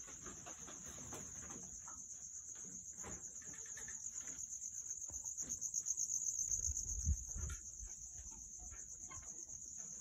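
Crickets trilling steadily, a high, finely pulsing trill that swells louder toward the middle. Faint scattered clicks and a couple of low thumps about seven seconds in.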